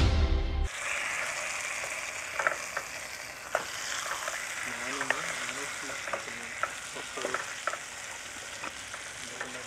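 Masala-coated fish frying in hot oil in a small pan, a steady sizzle, with a wooden spatula scraping and tapping against the pan every second or so as the pieces are turned. Background music cuts off just under a second in.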